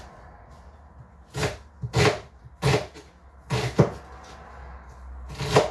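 Kitchen knife chopping onions on a cutting board: about seven separate, unevenly spaced knocks of the blade hitting the board.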